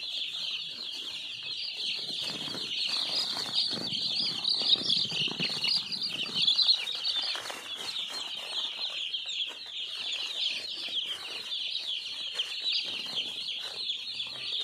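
A flock of about a thousand three-day-old chicks peeping all at once: a continuous chorus of high, short, falling cheeps overlapping one another.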